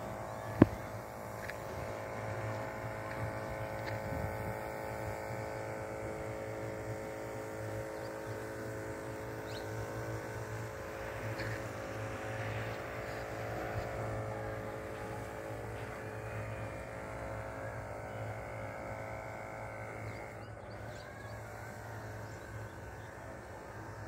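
Steady drone of a small engine running at constant speed, with a single sharp click about half a second in.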